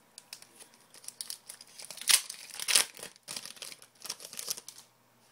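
Plastic wrapper of a Black Diamond hockey-card pack being torn open and crinkled: a run of crisp crackles, loudest about two and three seconds in.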